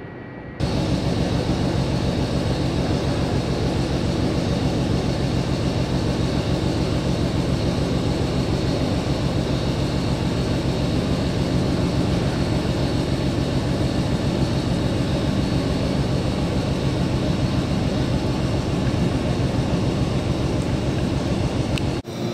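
Burmeister & Wain double-acting two-stroke marine-type diesel engine running: a loud, steady, very fast even beat over a low hum. It starts abruptly about half a second in and cuts off near the end.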